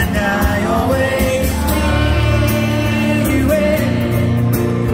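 Live pop-rock band performance heard from within an outdoor crowd: a male singer over a band with bass and a steady drum beat.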